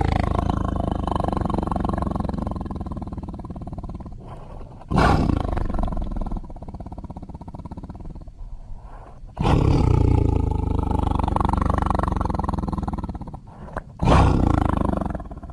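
Deep, drawn-out animal roars used as a sound effect, repeating. One is already sounding and fading, then new roars start suddenly about five, nine and a half and fourteen seconds in, each fading over about four seconds.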